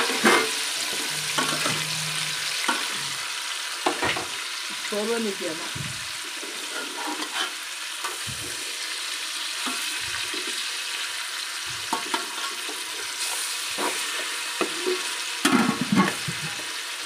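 Sliced onions and tomatoes sizzling in oil in an aluminium pot while a metal ladle stirs them, with sharp clicks and scrapes of the ladle against the pot every second or two. This is the onion-and-tomato base for a curry being fried.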